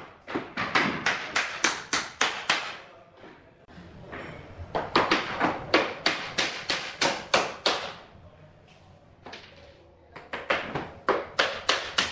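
Hammer nailing a bamboo skirting board to the base of a wall: three runs of quick strikes, about three to four a second, with short pauses between them.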